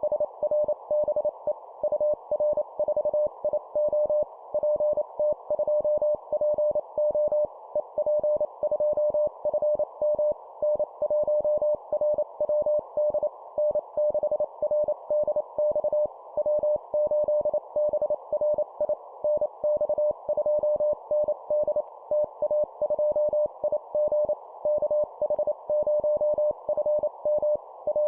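Morse code (CW) call signs sent at 25 words per minute: a single steady tone keyed rapidly on and off in short dots and longer dashes, over a steady background hiss.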